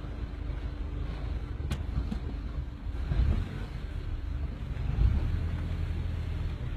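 Steady low rumble of a car engine and road noise, with a sharp click about two seconds in and a couple of heavier low thumps later on.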